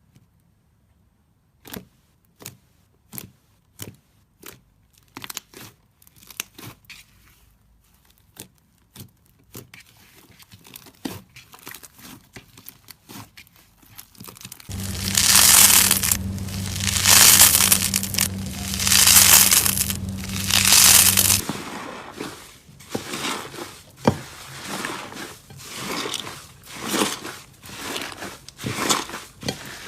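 Slime being handled: a run of separate sharp pops and clicks, then about halfway in four loud crinkly squishing swells over a steady low hum, then rhythmic crackling squishes.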